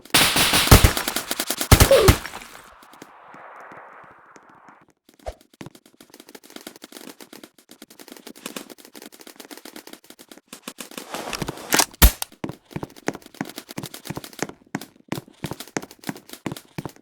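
Airsoft guns firing: a rapid full-auto burst in the first two seconds and another about eleven to twelve seconds in, with scattered single shots and clicks between.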